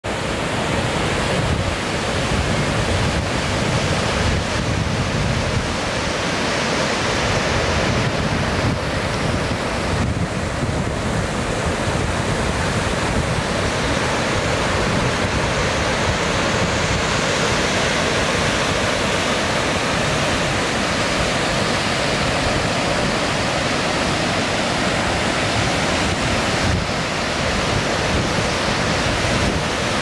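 Steady rush of the Stekkjarfoss waterfall and its rapids, with wind buffeting the microphone.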